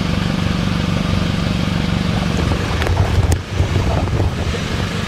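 Car engine idling through an aftermarket exhaust: a steady low rumble with a couple of sharp clicks about three seconds in.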